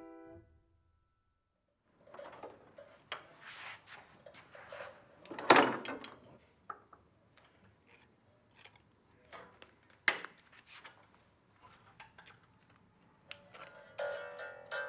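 Steel piano string being handled while a grand piano is restrung: the wire rubs and scrapes and clicks lightly against the plate and tuning pins, with a louder scrape about five seconds in and a sharp click about ten seconds in.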